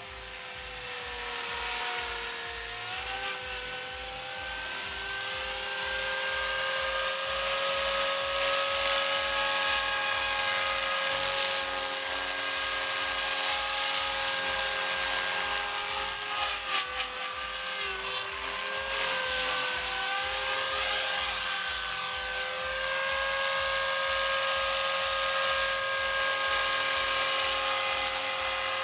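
Mini Titan E325 electric RC helicopter running on the ground: a high motor-and-gear whine with rotor noise. The whine rises in pitch over the first few seconds as the rotor spools up, then holds steady, with a brief dip and recovery about two-thirds of the way in.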